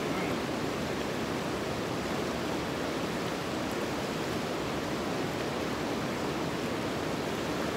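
Steady rush of a fast, rocky stream running over small rapids.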